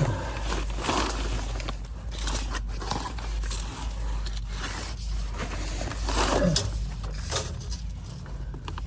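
Irregular scraping, rustling and light knocks of sheet-metal snaplock duct being handled and test-fitted, over a steady low hum.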